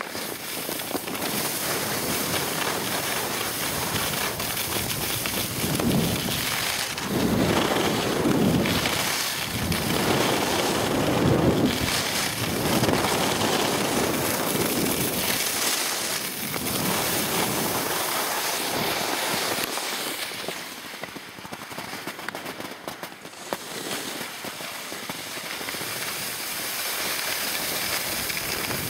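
Wind rushing over the microphone and skis hissing and scraping on the snow during a downhill ski run. The noise swells louder several times in the middle and eases off later.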